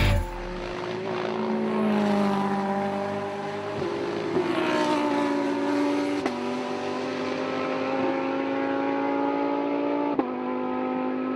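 Ferrari 458 GT3 race car's V8 engine running hard on track, its note sliding gradually lower, with sudden steps in pitch at gear changes about four, six and ten seconds in.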